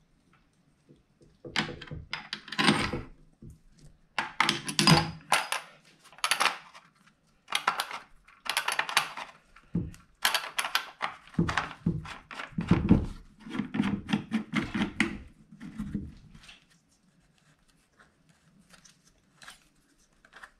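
Handling noise of a Crosman 1077 CO2 air rifle: a string of clicks, knocks and small metallic rattles as a 12-gram CO2 cartridge is handled and the knurled cap of the rifle's gas tube is worked by hand. The noises thin out to a few faint ticks in the last few seconds.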